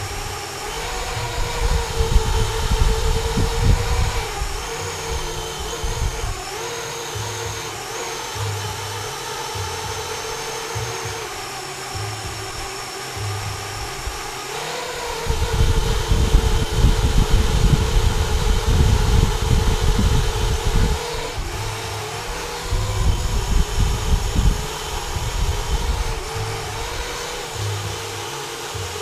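FPV racing quadcopter's brushless motors and propellers whining near minimum throttle, a steady tone that wavers in pitch, with stretches of heavy low rumbling.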